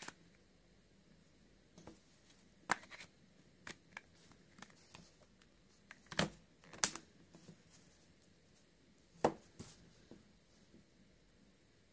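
Plastic back cover of a smartphone being pressed and snapped into place on the phone body: a series of scattered clicks and taps. The loudest clicks come about 3, 6, 7 and 9 seconds in.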